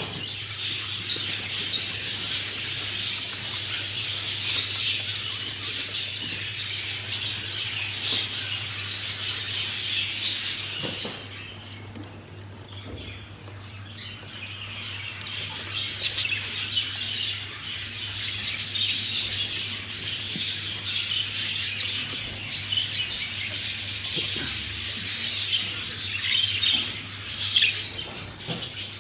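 Budgerigars chattering and chirping together in a dense, continuous warble that eases off for a few seconds near the middle.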